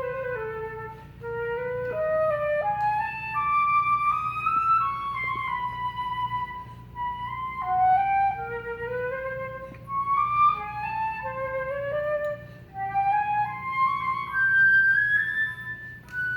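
Unaccompanied concert flute playing a melodic passage: a single line of short phrases that climb and fall, with brief breaths between them.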